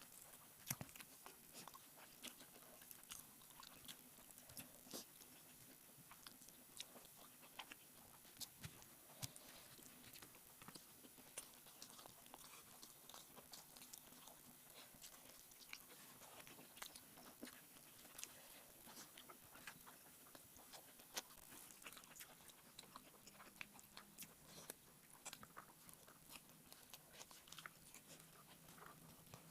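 Faint chewing and wet mouth clicks of a person eating rice and egg curry, with many small, irregular clicks spread throughout.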